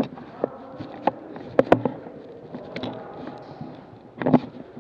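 Airsoft guns firing in an indoor arena: about six sharp single cracks at irregular intervals, the strongest about a second and a half in and near the end, over a low buzzing background.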